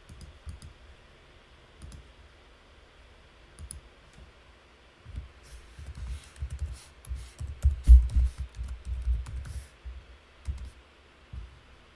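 Typing on a computer keyboard, with sparse key clicks at first and denser bursts in the second half. Dull low thumps come with the busiest typing, loudest about eight seconds in.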